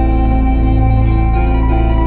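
Background music: guitar with echo effects playing sustained notes over a steady low bass.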